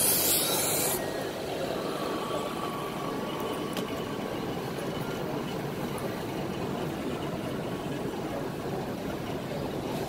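OLED screen lamination machine starting its vacuum cycle. A loud hiss of air cuts off suddenly about a second in, then its external vacuum pump runs with a steady hum.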